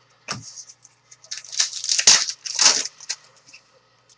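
Foil wrapper of a trading-card pack being torn open and crinkled, in a series of rough tearing strokes, the loudest about two seconds in.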